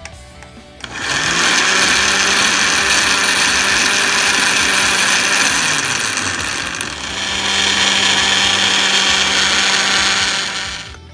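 Countertop blender pureeing chopped shallots, garlic and spices into a paste. The motor spins up about a second in and runs steadily, slows briefly a little past halfway, then runs again and stops near the end.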